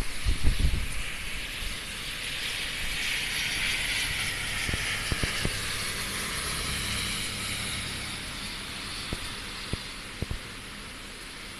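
Typhoon wind and heavy rain: gusts buffet the microphone with a low rumble in the first second, then a broad hiss swells and fades over several seconds, with scattered sharp ticks of drops or debris striking.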